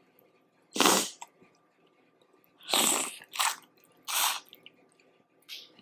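Close-up eating sounds of a person working through boiled crawfish: five short, noisy bursts of mouth noise, the first about a second in and the last near the end.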